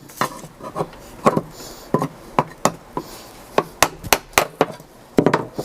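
A screwdriver being driven against the head of a silver rivet on a fan motor's end cover to cut it off: a string of a dozen or more irregular sharp metal taps.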